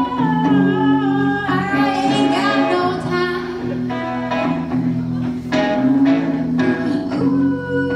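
Live song: a woman singing long held, gliding notes over an acoustic guitar accompaniment.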